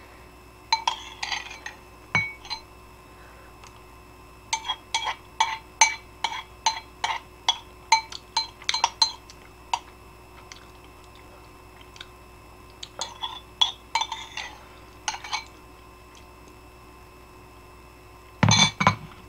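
Metal spoon clinking and scraping against a ceramic bowl of ramen, in quick runs of light ringing taps with pauses between. A short, louder noise comes near the end.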